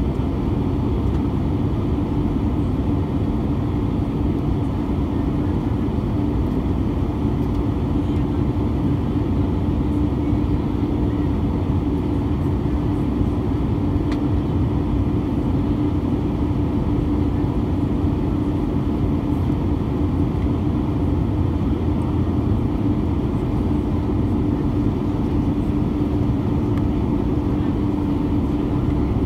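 Airbus A320 cabin noise during descent, heard from a window seat over the wing: the steady rush of the jet engines and airflow, with a steady low hum running underneath.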